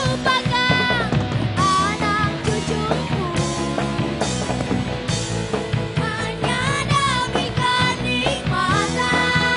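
Live rock band playing: female lead vocals sung into microphones over electric bass and a drum kit.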